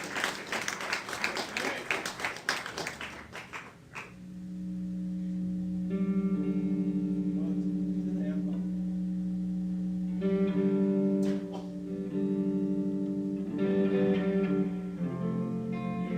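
Audience applause dying away over the first few seconds, then an instrument playing slow, sustained chords that change every few seconds.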